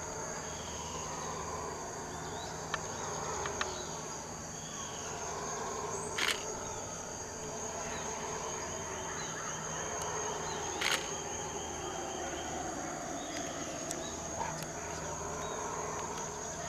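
Howler monkeys howling in chorus, a low wavering drone that swells and fades, over a steady high insect buzz. Two short sharp clicks, about six and eleven seconds in.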